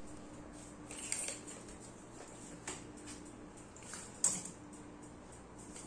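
A few light clicks and knocks over a steady faint hum, the sharpest knock about four seconds in.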